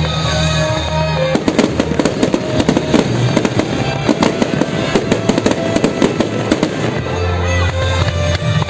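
Fireworks crackling in a dense run of sharp pops, starting about a second and a half in and stopping at about seven seconds, over music.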